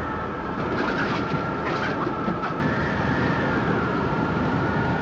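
Tornado wind sound effect: a steady, loud rumbling roar with thin high whistling tones held over it, swelling slightly about a second in.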